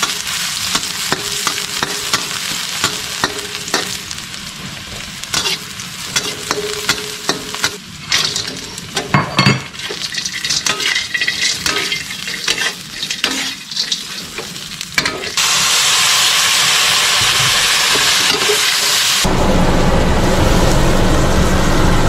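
Shredded squid stir-frying in a wok: hot oil sizzling while a metal spatula scrapes and knocks against the pan. About two-thirds of the way through this gives way to a louder, steady hiss, and a low rumble joins near the end.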